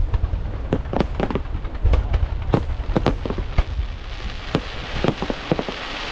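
Fireworks display: a quick run of a dozen or so sharp bangs from shells and mines firing and bursting, over a constant low rumble. From about four seconds in, a hissing wash grows louder beneath the bangs.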